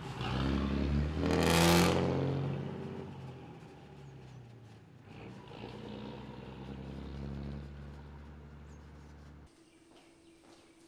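Diesel engine of a Lanka Ashok Leyland bus pulling away, loudest with a brief hiss about a second and a half in, then fading as the bus drives off. The sound drops to near silence about nine and a half seconds in.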